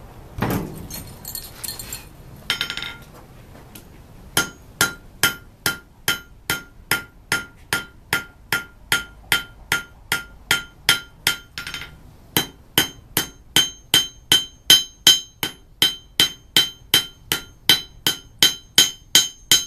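Blacksmith's hammer striking red-hot steel on an anvil, with a steady run of ringing blows about two and a half a second and a short pause partway through. He uses the curved side of the hammer to spread the necked-down bar end thin into a leaf. A few scrapes and clanks come first, as the bar comes out of the forge.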